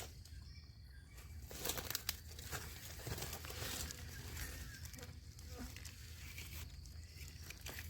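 Light rustling and crinkling with scattered small crackles: handling noise while wild mushrooms are picked.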